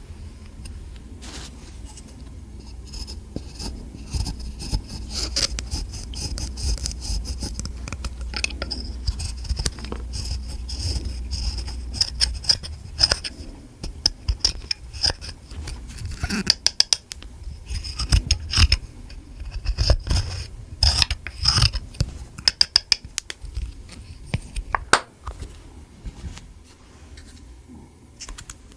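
Slime being worked and mixed with lipstick: scraping and many quick sticky clicks, coming thickest past the middle.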